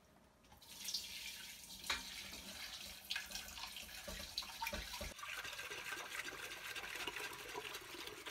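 Kitchen tap running into a stainless steel pot in the sink, starting about half a second in, the water splashing as a hand stirs it. A few sharp knocks come from the pot being handled in the sink.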